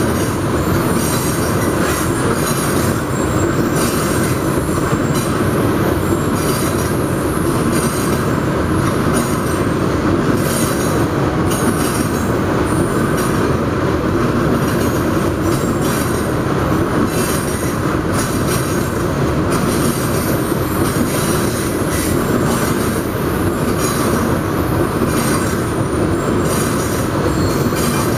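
Loaded coal hopper cars of a freight train rolling past: a loud, steady rumble and rattle of steel wheels on rail.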